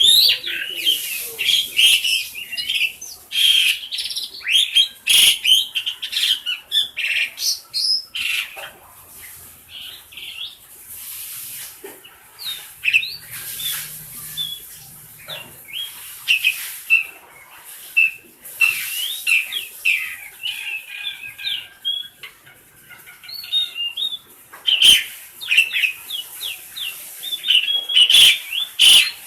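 Asian pied starling (jalak suren) chattering a rapid jumble of squeaky, whistled and harsh notes in bursts, with a few sharp clicks, quieter for a while in the middle.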